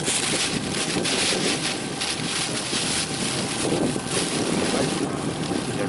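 Wind buffeting the microphone: a steady rushing noise that swells and eases in gusts.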